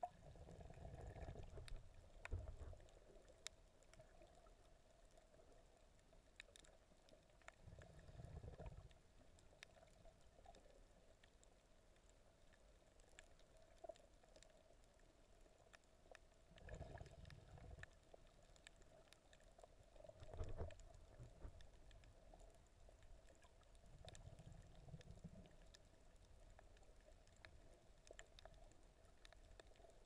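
Faint, muffled underwater sound: low swooshes of moving water at irregular intervals a few seconds apart over a faint steady hum, with a short knock in two of the swooshes.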